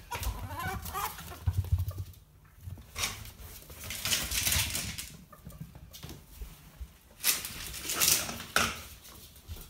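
Two ferrets play-fighting on a tiled floor: scuffling and claws scrabbling on the tiles in irregular bursts, with thumps and clucking chatter, the ferrets' dooking.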